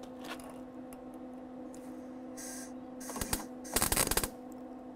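MIG welder tack-welding rusty car body sheet metal: a brief sputter of the arc a little after three seconds in, then a louder crackling burst of about half a second. The tack takes. A steady low hum runs underneath.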